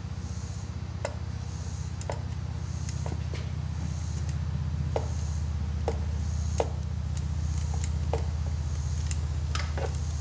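Scattered light metallic clinks and taps of hand tools, a wrench and then locking pliers, being worked at a motorcycle's oil filter, about a dozen in all. A steady low hum runs underneath.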